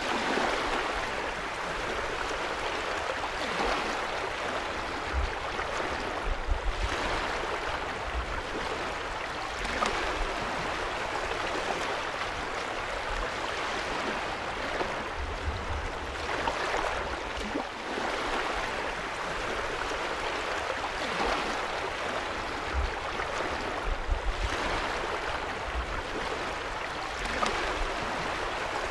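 Small waves lapping on a shore: a steady wash of water that swells about every three seconds as each wave comes in.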